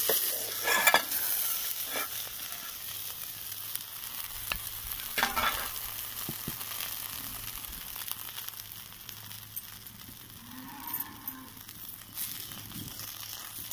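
Rice-flour pitha batter sizzling in a hot iron kadai. In the first second there are metal clinks and scrapes from the steel plate lid and spatula, and then the sizzle thins to a softer hiss. About ten seconds in, a cow moos faintly in the background.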